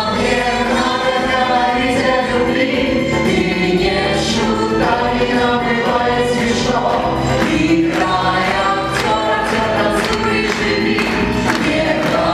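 A song performed live by a female and a male singer with orchestral accompaniment and a full chorus of voices. About nine seconds in, steady rhythmic clapping joins in, roughly two claps a second.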